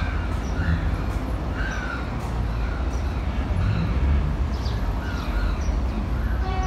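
Crows cawing repeatedly, several short harsh calls in a row, over a steady low rumble of outdoor city noise.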